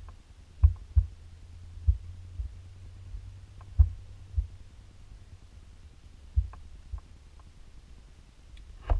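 Samsung laptop touchpad being clicked and tapped while a CAD model is rotated on screen. It gives irregular dull low thumps, some with a faint sharp click, about eight in all, over a low hum.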